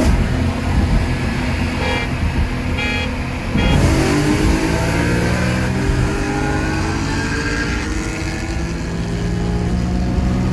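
Car engine accelerating hard: its pitch drops at a gear change about four seconds in, then climbs steadily as it pulls through the next gear.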